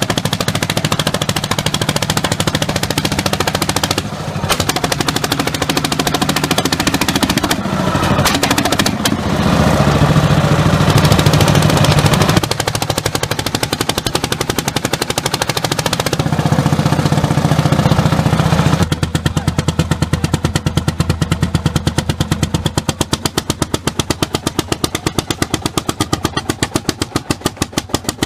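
Landini CV55-60 tractor's single-cylinder hot-bulb two-stroke engine pounding out a fast, even beat under ploughing load. The beats stand out most clearly in the second half.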